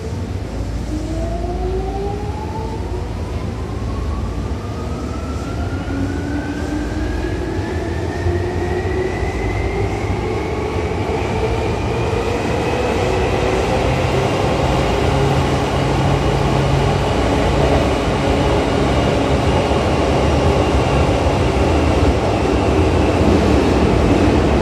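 Tokyu 8500 series train's Hitachi traction motors whining as the train accelerates. The pitch climbs smoothly for about fourteen seconds, then levels off and holds while the sound slowly grows louder. A steady low rumble of the running gear lies underneath.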